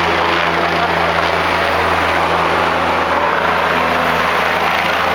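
Police helicopter in flight: a steady, loud drone of rotor and engine.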